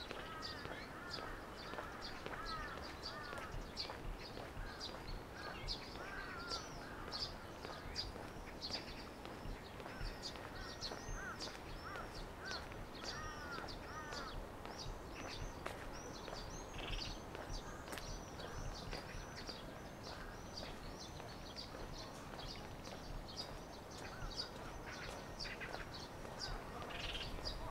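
Birds chirping: a dense stream of quick, high chirps throughout, with another bird's lower, arching calls repeating through about the first half.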